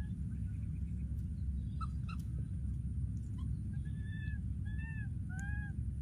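A baby monkey gives three short arched calls, each rising then falling, about half a second apart near the end, over a steady low rumble.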